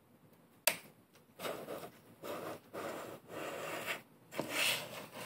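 Handling noise from an Olympus OM10 35mm SLR being shifted about on a wooden table: a sharp click less than a second in, then four rubbing, scraping strokes.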